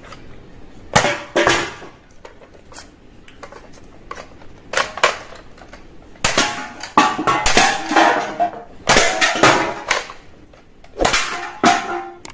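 Hard plastic toy guns clattering and knocking together as they are handled. Irregular sharp clacks and clinks, some with a short ring, come in bunches and are busiest in the middle of the stretch.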